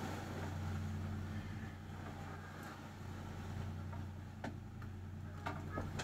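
A boat's engine drones steadily under the rushing noise of waves and wind. A few sharp knocks or rattles come in the last couple of seconds.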